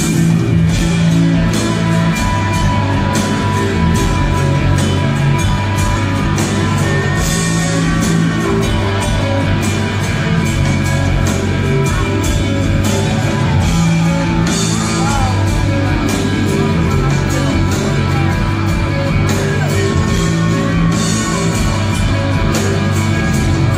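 A live rock band playing loudly, heard from the crowd: electric guitar over bass and drums, with cymbals crashing regularly.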